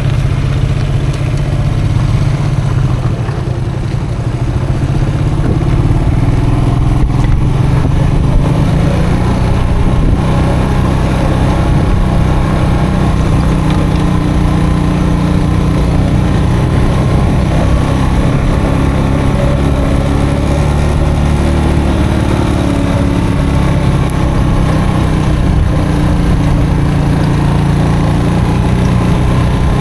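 Custom motorcycle engine running under way on a dirt track, heard from on board; it eases off about three to four seconds in, then picks up speed and settles into a steady run.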